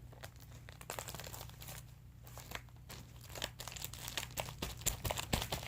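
Cardboard being ripped up and crumpled by hand: an irregular run of crackles, crinkles and short tearing scrapes.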